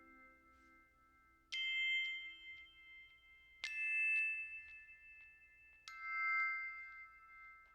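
Background music: three bell-like struck notes about two seconds apart, each ringing on and slowly fading.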